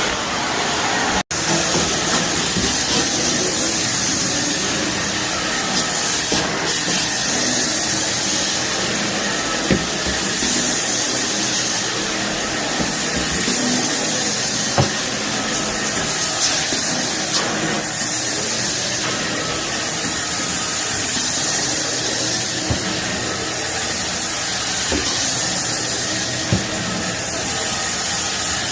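Shark vacuum cleaner running steadily over a carpet full of dry soil and debris, with scattered small clicks and crunches as grit is sucked up.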